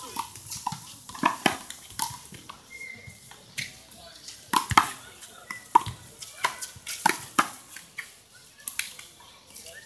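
Handball play: a rubber handball being slapped by hand, smacking off the wall and bouncing on the court, in a quick, irregular series of sharp smacks.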